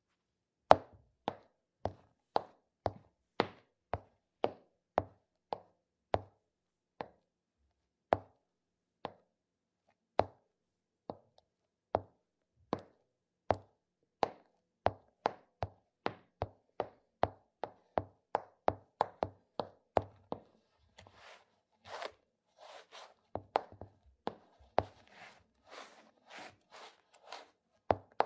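Footstep sound effects: a run of sharp, clicking steps at a walking pace, coming faster partway through, then changing at about 21 seconds to grittier, scuffing steps.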